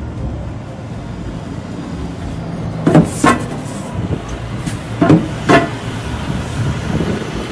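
Diesel route bus running at the stop with a steady low engine drone. Four short, loud sharp sounds come in two quick pairs, about three and about five seconds in.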